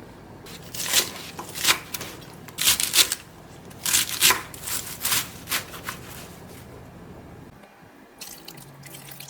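Liquid dripping and splashing in a kitchen: a string of irregular, short wet sounds over about five seconds, then it goes quieter.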